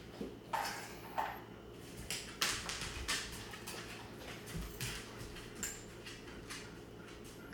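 A dog moving about during a key-retrieve exercise: scattered, irregular light clicks and small metallic clinks, with no steady sound beneath.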